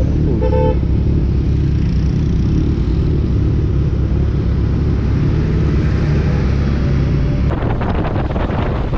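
Motorcycle engine and wind rumble on a Suzuki GSX-R sportbike, recorded by the rider's camera, with a short beep about half a second in. About a second and a half before the end the sound changes abruptly to a Harley-Davidson touring bike's engine and wind, rougher and pulsing.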